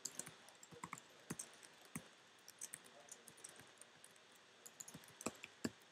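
Typing on a computer keyboard: faint, irregular key clicks as a sentence is typed.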